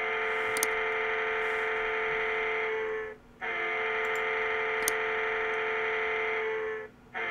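A synthesizer chord held steady, dropping out briefly twice and coming straight back, about three seconds at a time.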